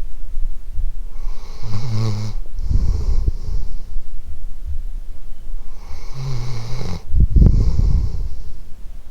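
A sleeping dog snoring, recorded up close: two slow snoring breaths about five seconds apart, each a low buzzing rattle followed by a breathy rush of air.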